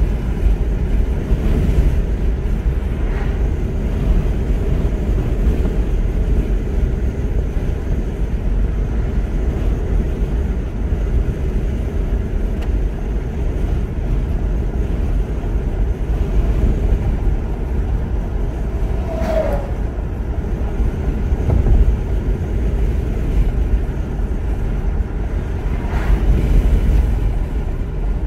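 Steady engine and tyre rumble of a moving car, heard from inside the cabin. A short falling tone cuts through about two-thirds of the way in.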